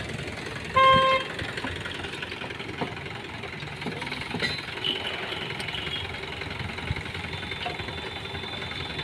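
A vehicle horn gives one short toot about a second in, the loudest sound. Behind it is steady background noise with a few faint knocks of tools working a stuck rear brake drum loose.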